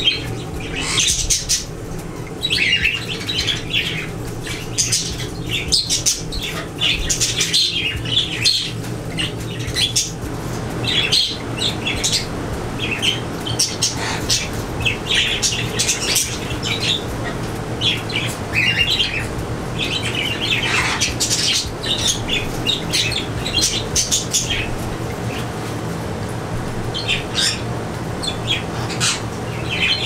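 A group of budgerigars chattering and squawking, with a dense, irregular run of short high chirps throughout, over a steady low hum.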